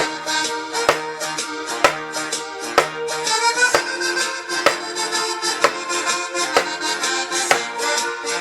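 Background music with an accordion-like reed melody over a steady beat, with a sharp percussive hit about once a second.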